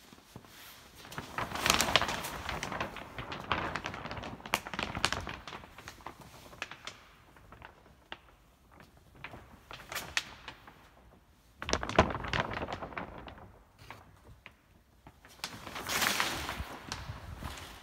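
Clear plastic sheeting rustling and crinkling as it is pushed aside, in two spells near the start and near the end, with scattered clicks and handling knocks in between and one sharp knock about two-thirds of the way through.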